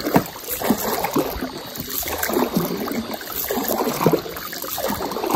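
Wooden paddle dipping and pulling through the water in repeated strokes, each a splash and gurgle as a small boat is paddled along.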